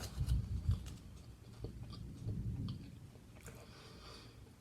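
A person chewing food close to the microphone, soft and wet, strongest in the first second and again about two seconds in.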